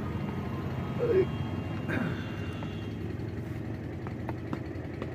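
A few light metal clicks as a socket bar is worked on the oil filter cap of a Piaggio Ape City engine, over a steady low rumble. A short squeak about a second in is the loudest sound.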